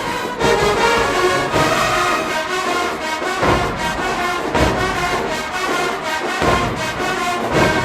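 HBCU marching band playing in the stands: a full brass section with bass drum hits underneath.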